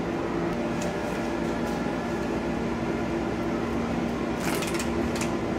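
Steady machine hum of convenience-store appliances: several steady tones over a low rumble. A brief papery rustle comes about four and a half seconds in.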